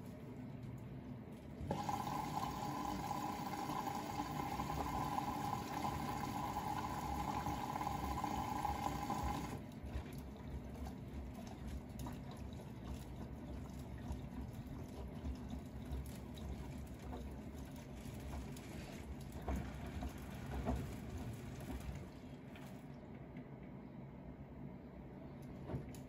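Bosch front-loading washing machine taking in water: a hissing rush of water through the inlet starts about two seconds in and cuts off suddenly after about eight seconds. Then the drum keeps turning, with the wet laundry sloshing quietly.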